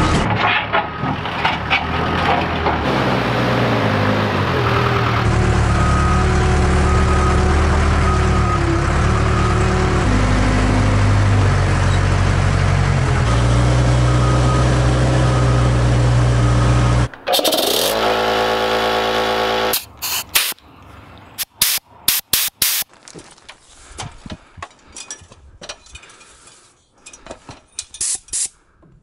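Case 580K backhoe loader's diesel engine running, its revs stepping up and down several times. About 17 seconds in it gives way to a few seconds of another steady hum, then to scattered light clicks and knocks of hands handling parts.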